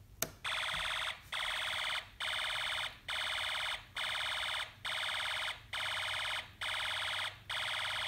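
Snap Circuits burglar-alarm circuit sounding an electronic alarm through its small speaker, right after a click of the slide switch turning it on. The buzzy tone comes in bursts of about three-quarters of a second, repeating about once a second. This is the alarm's start-up run, which must finish before the whistle chip can trigger it by noise.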